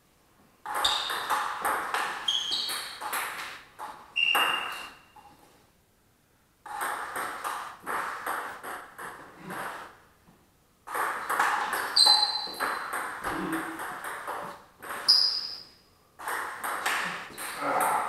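Table tennis rallies: the ball clicks rapidly back and forth between bats and table in four bursts, with short pauses between points. A few brief high squeaks come in among the hits.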